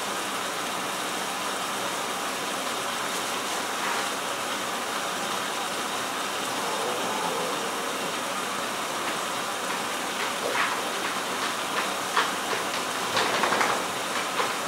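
Kitchen tap running steadily into a stainless steel sink while it is washed out, with a few short knocks and clatters in the sink in the last few seconds.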